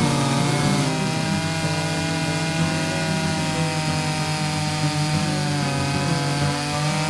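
Vintage Stihl 056 two-stroke chainsaw running at steady high revs under load, ripping lengthwise through a chestnut log in an Alaskan chainsaw mill. Its pitch wavers slightly as the bar works through the cut.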